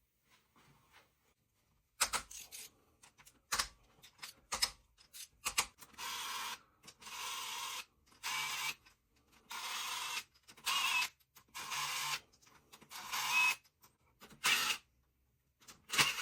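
Hand ratchet worked in repeated strokes of about a second each, clicking on the back-swing, after a few sharp clicks about two seconds in; bolts being undone to take off a cylinder head.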